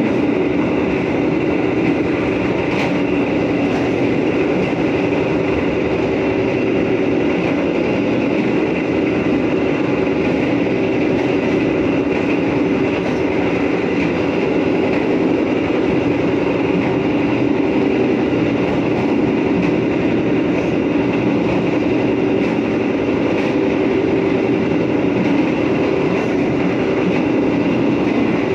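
Steady running noise of a moving train heard inside its rearmost passenger carriage: a continuous rumble and hum from the wheels on the rails, unbroken throughout.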